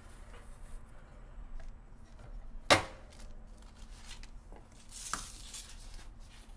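Light clicks and knocks of pizzas being taken out of a toaster oven, with one sharp metallic clank about three seconds in that rings briefly, and a smaller clack with a short scrape a couple of seconds later.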